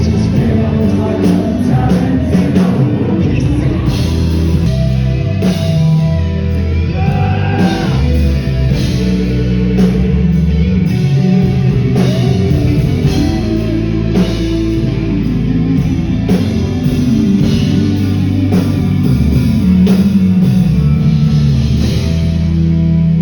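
Loud music with a singing voice over a steady drum beat and guitar, in a rock style.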